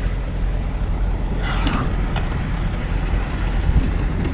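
Truck engine and road noise heard from inside the cab while driving, a steady low drone, with a brief higher hiss or rattle about a second and a half in.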